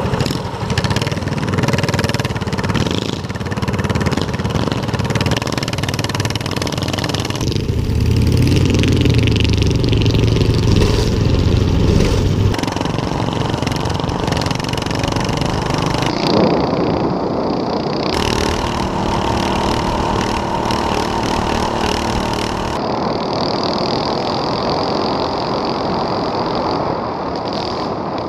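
Small single-cylinder engine of a mini bike running under way, with heavy wind buffeting on the microphone. The engine and wind sound change abruptly several times.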